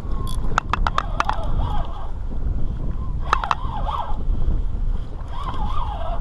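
Fishing reel's drag whining in short, wavering runs as a hooked fish pulls line, with a quick run of sharp clicks about a second in.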